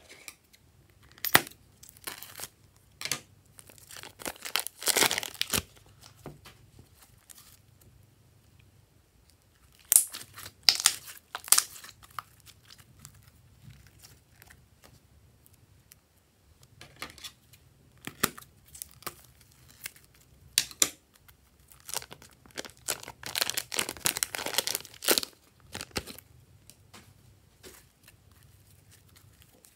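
Glossy slime being squeezed and pressed by hand: wet, sticky clicks and crackles in irregular bursts, with quieter gaps between.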